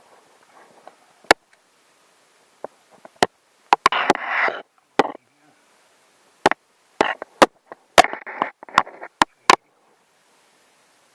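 A series of about a dozen sharp, irregular knocks and clicks of hand tools or hard objects, with two short rasping scrapes, one about four seconds in and one about eight seconds in.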